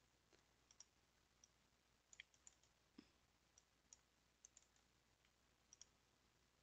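Near silence with a dozen or so faint, irregular clicks of a computer mouse.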